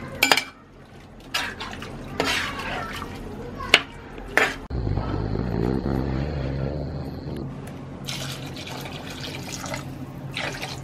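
A ladle stirring a freshly watered curry in a large metal pot, with liquid sloshing and about five sharp knocks of the ladle against the pot. A little under halfway through it gives way to a steady low rumble with a faint thin high tone, the firewood fire burning under the pot. More ladle knocks come near the end.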